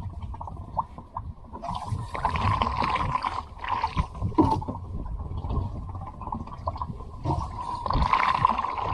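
Water splashing and gurgling around a swamped kayak, in irregular surges with a few knocks.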